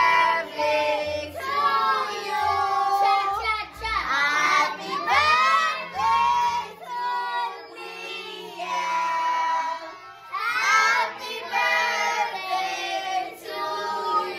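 A group singing together, children's voices prominent among them.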